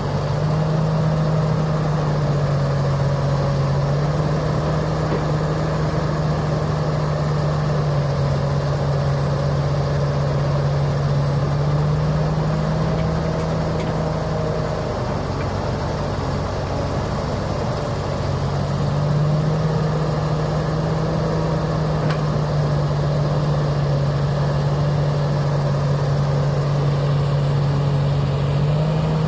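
Diesel engine of a Komatsu PC330 crawler excavator working under hydraulic load as it digs and swings, over a dump truck's idling engine. The steady drone shifts in pitch with each dig-and-dump cycle and eases for a few seconds midway.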